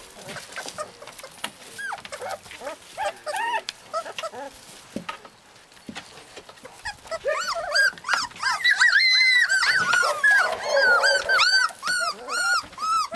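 Husky puppies whining and squeaking in short, high, rising-and-falling cries: a few scattered ones at first, then a dense, louder chorus of overlapping whines from about halfway through.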